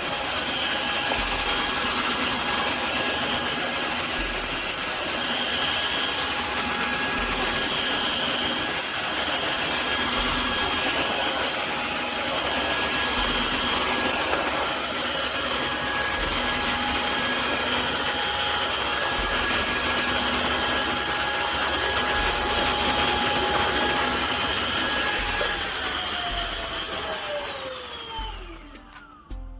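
Tineco cordless wet-dry floor vacuum running steadily with a motor whine over its airflow. About 26 seconds in it is switched off and the whine falls in pitch as the motor spins down.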